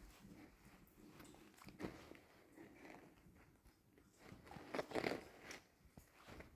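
Faint rustling and small knocks of things being handled, with a louder rustle about five seconds in.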